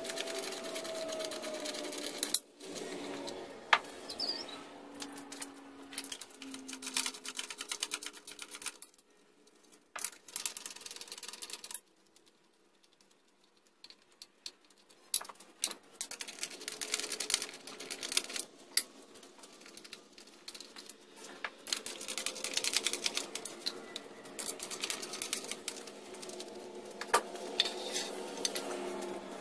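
Socket ratchet clicking in quick runs, with metal clinks, as the bolts holding an outboard motor's lower unit gearcase are backed out.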